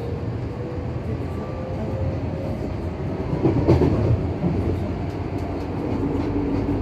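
Running sound inside a Tokyo Metro 03 series electric train car: a steady rumble of wheels on the track, with a faint motor whine rising in pitch over the first few seconds as the train gathers speed. There is a louder clunk about three and a half seconds in, and a steady hum sets in near the end.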